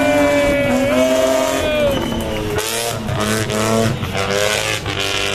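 A drift car's engine held at high revs through a slide, its pitch dropping about two seconds in and climbing back up on the next slide, with tyres skidding underneath.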